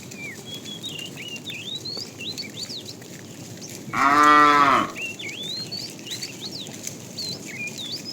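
A cow moos once, about four seconds in: a single call of just under a second that rises and then falls in pitch. Birds chirp and whistle throughout.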